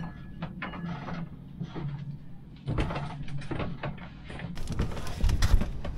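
Footsteps and scattered knocks and clunks as a person climbs down the companionway steps onto a plastic toolbox used as a step, over a steady low hum. Heavier low thuds come near the end.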